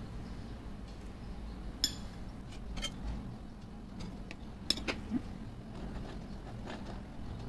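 A handful of light clinks and taps of a spatula and metal palette knife against the bowl and cake turntable as whipped-cream frosting is scooped onto a cake layer and spread, over a low steady background hum.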